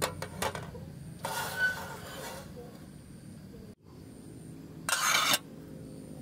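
Light metal clinks as an aluminium camping pot is set on the grate of a portable gas cassette stove, with two short bursts of hiss, one about a second in and one near the end, over a steady low hum.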